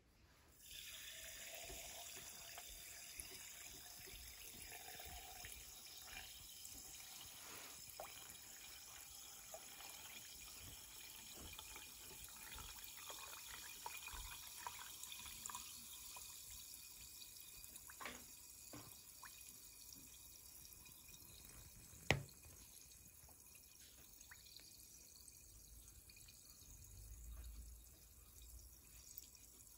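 A clear fizzy drink poured from a glass bottle into a glass over pieces of agar candy, with a steady quiet fizzing hiss and scattered small crackles as the bubbles rise and pop. There is one sharp click about two-thirds of the way through.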